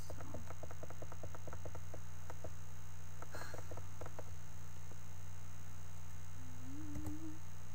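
Computer mouse clicking in a quick run, about eight clicks a second, thinning out after two and a half seconds with a few more clicks and a brief rustle. A steady electrical hum from the recording setup runs underneath.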